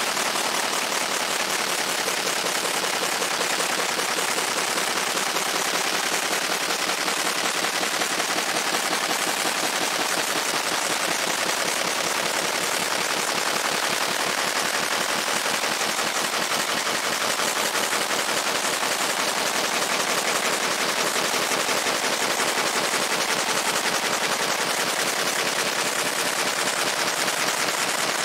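Fiber laser marking a steel sledgehammer head: a steady, dense, very rapid crackle as the pulsed beam ablates the metal, keeping an even level throughout.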